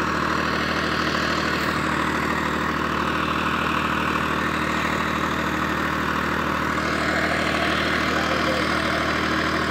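Swaraj 834 XM tractor's three-cylinder diesel engine running steadily under load as the tractor strains against a loaded trolley stuck in sand, its front wheels lifted. The engine gets slightly louder about seven seconds in.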